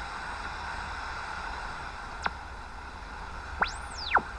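Yaesu FRG-7 shortwave receiver hissing through its speaker with the volume high, then a whistle sweeping up to a very high pitch and back down as it is tuned in sideband mode, with a brief falling chirp just before. The whistle is taken for the beat-frequency oscillator working.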